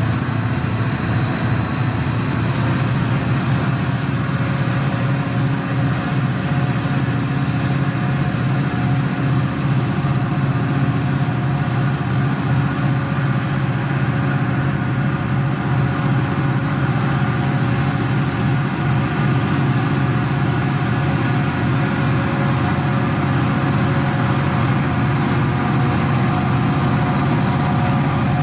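Two diesel-electric freight locomotives running steadily as the train approaches, with a deep, even engine drone that grows slightly louder as they near.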